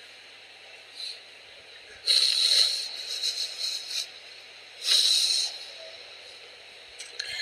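Pause in a recorded Quran recitation: low background hiss with two short hissing sounds, about two and five seconds in.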